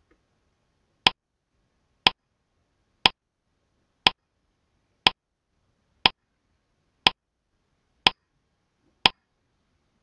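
Countdown-timer tick sound effect: a sharp clock-like tick once a second, nine ticks in a row.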